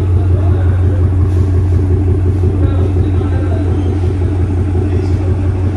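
A BMW 850i idling through a full stainless-steel aftermarket exhaust with a 3-inch ceramic-coated downpipe and Sirrush resonators, giving a steady, deep exhaust rumble that holds even, with no revving.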